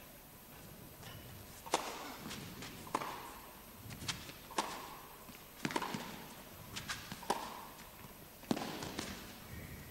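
Tennis rally: a ball is struck with rackets and bounces on the court, giving sharp pings and pocks about every half second to a second and a half. It starts a little under two seconds in, with the impacts echoing in the hall.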